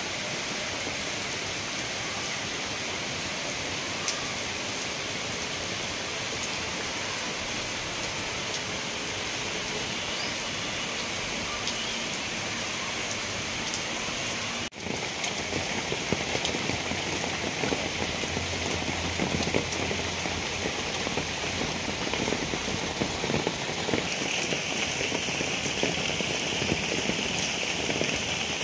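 Steady rain falling on garden foliage and paving, a continuous hiss. About halfway through, after a brief break, it is louder and closer, with many separate drops striking.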